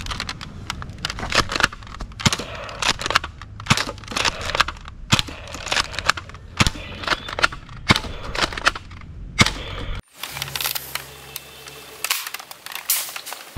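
Nerf Elite 2.0 Commander foam-dart blaster fired rapidly: a fast, irregular string of sharp plastic clacks that stops about ten seconds in. After that come a brief low hum and a few more clacks.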